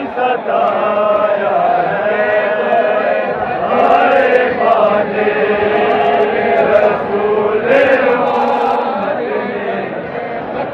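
A crowd of men chanting a Shia mourning lament (nauha) together in long, held phrases. A few sharp slaps of chest-beating stand out about four, five and eight seconds in.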